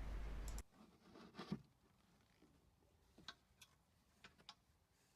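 Near silence with a few faint, irregular metallic clicks and taps of hand tools working on a brake caliper's bolts. A faint hiss cuts off under a second in.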